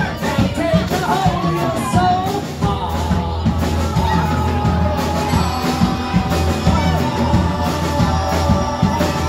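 Live band with a lead singer playing through PA speakers. The sung melody is strongest in the first couple of seconds, and from about three seconds in the bass holds a steady low note under the music.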